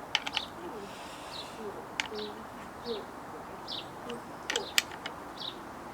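Birds calling: a short high falling note repeated roughly once a second, with faint low cooing notes like a dove. A few sharp clicks from handling the saw come near the start, about two seconds in, and near the end.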